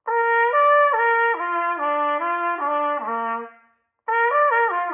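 Trumpet playing a slurred C major arpeggio figure slowly, stepping through sustained notes and working down to a low note. After a brief break about four seconds in, it starts the same figure again, faster.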